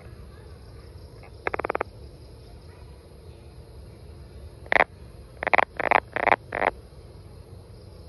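Frog calling: a short rattling call of rapid pulses about one and a half seconds in, then, a few seconds later, a single note followed by a run of four quick notes.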